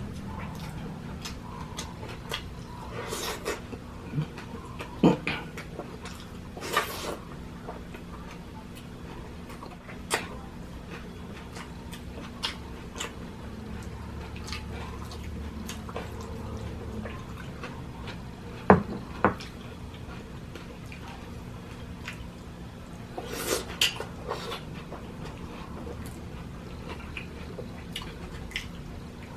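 Mukbang eating sounds: chewing, and scattered sharp clicks of utensils on a plate, over a faint steady hum.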